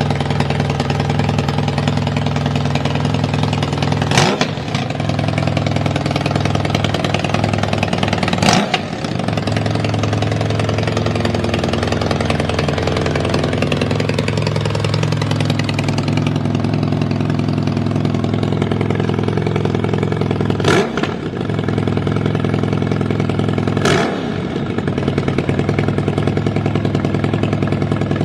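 Kawasaki ZRX1200 DAEG inline-four motorcycle engine running at a steady idle, with four short throttle blips, the first two close together and two more near the end. The idle is even, which the seller rates as stable with no abnormal noise.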